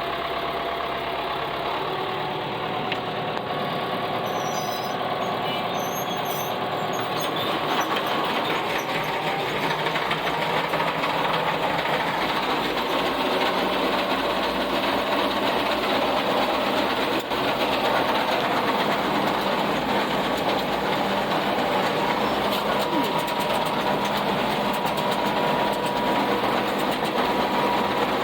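Farm tractor running under steady load with a round baler working behind it: a constant engine drone mixed with the clatter of the baler's chains and pickup, slightly louder after about eight seconds.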